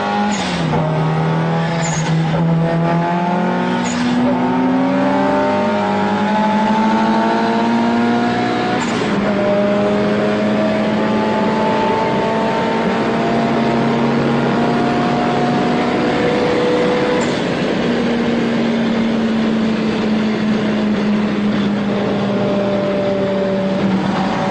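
Old Lada's engine running hard at high revs at motorway speed, heard from inside its cabin over road and wind noise. The engine pitch shifts up and down a few times in the first ten seconds, then holds steady.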